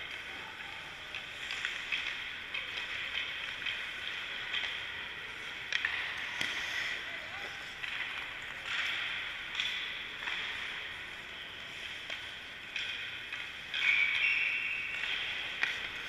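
Ice hockey skates scraping and carving across the rink ice, with a few sharp clacks of stick on puck as shots are taken; the loudest scrape-and-clack comes near the end.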